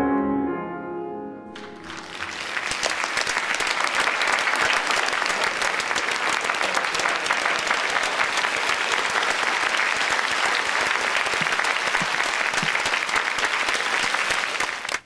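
The last notes of a grand piano ring out and fade, then, about a second and a half in, an audience applauds steadily; the applause cuts off suddenly at the end.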